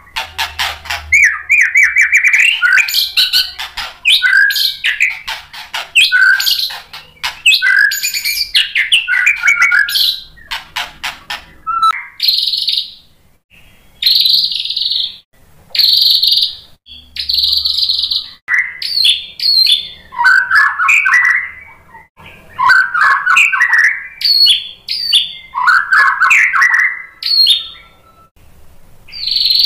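White-rumped shama (murai batu) singing a long, varied song. Rapid whistled phrases give way in the middle to a run of about four harsh, noisy notes, then more whistled phrases follow. It is singing in full voice and showing off its repertoire of learned song material.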